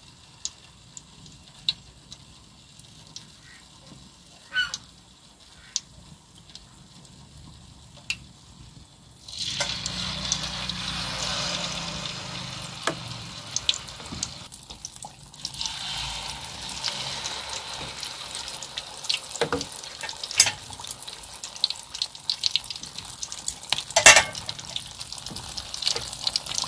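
Battered banana fritters sizzling in hot oil: the sizzling starts suddenly about nine seconds in as they go into the pan, then runs on with crackles and sharp pops. Before that, only a few faint clicks of a spoon spreading batter in a banana-stalk mould.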